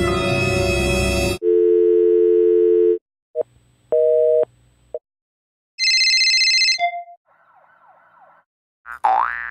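A quick run of separate stock sound effects: a loud noisy burst, then a telephone dial tone of two steady tones for about a second and a half, a telephone busy signal, a short high electronic beep, faint quick falling chirps, and a siren wailing up and down near the end.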